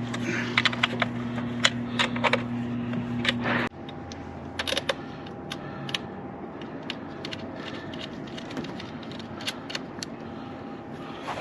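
Light metallic clicks and taps of hand tools working a battery cable connection as it is bolted down. A steady low hum runs under the first few seconds and stops abruptly.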